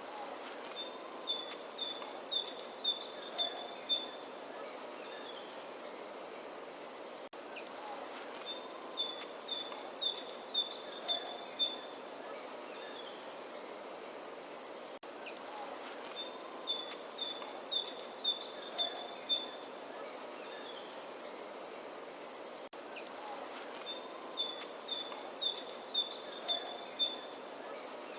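Birdsong: a single bird's song phrase of a few high notes dropping in pitch, then a quick string of repeated chirps, recurring identically about every seven and a half seconds as a looped recording. A faint steady background hiss runs underneath.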